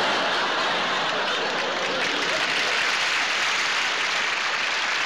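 Studio audience applauding steadily in response to a comedy punchline.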